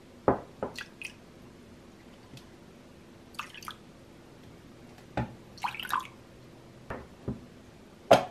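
A metal spoon clinking and tapping against a glass measuring cup as soy sauce and then sugar are spooned in, with liquid dripping. A scatter of sharp taps, the loudest near the end.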